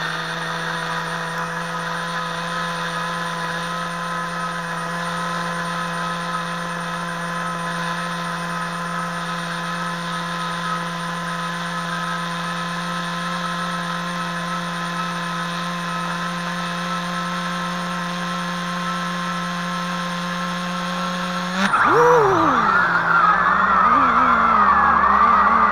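HobbyKing FPV250 quadcopter's brushless motors humming at a steady pitch while the quad sits upside down in the grass after a crash, heard through its onboard camera. About 22 seconds in they suddenly throttle up louder and the pitch starts rising and falling as it flies off.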